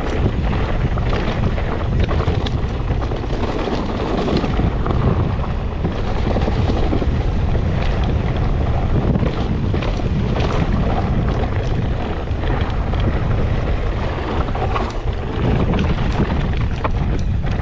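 Wind rumbling on a helmet or chest-mounted GoPro as a mountain bike rides downhill at speed, with many short rattles and knocks from the bike and tyres going over rough ground.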